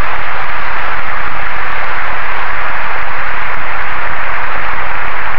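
A large audience applauding steadily, a dense wash of many hands clapping together.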